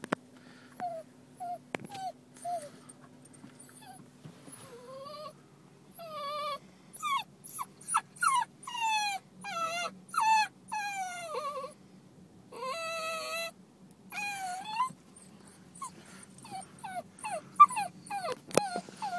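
A Basenji dog whining: a long string of high, wavering whimpers and cries, many sliding down in pitch, coming thickest in the middle stretch. It is distress whining at her owner having left her in the car.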